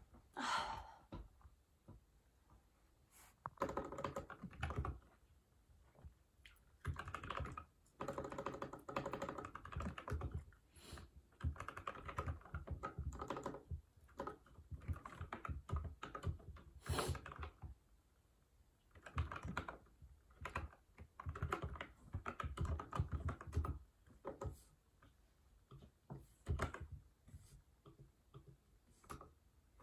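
Typing on a mechanical computer keyboard: runs of rapid keystrokes a second or a few seconds long, broken by short pauses.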